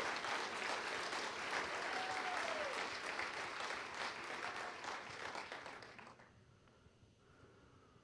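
Congregation applauding, the clapping fading out about six seconds in.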